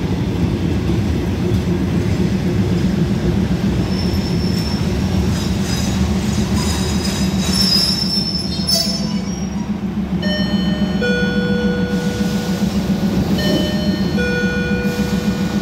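Diesel railcar train standing at the platform with its underfloor engines idling, a steady low hum. From about ten seconds in, a high steady squealing tone comes and goes twice over the hum.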